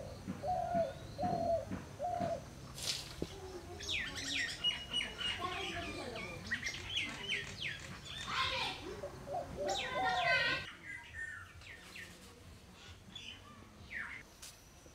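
Several small birds chirping and calling, most densely through the middle, thinning to a few scattered chirps for the last few seconds.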